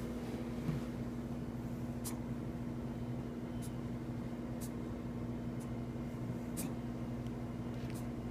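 A steady low electrical hum with a few faint, scattered clicks.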